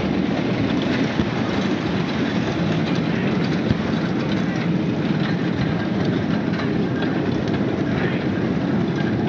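Dense, steady noise of a large street crowd with voices mixed in, and two sharp cracks: a small one about a second in and a louder one a little before the middle.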